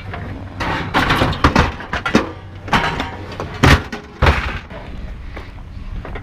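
Scrap being lifted and handled: a string of irregular clanks, knocks and rattles, the two loudest knocks coming a little past halfway.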